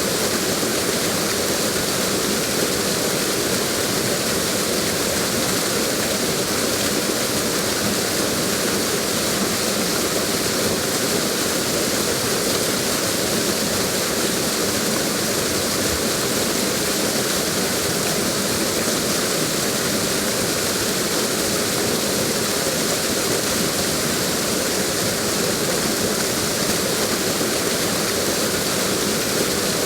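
Waterfall: water falling steadily, a constant even rush with a strong hiss.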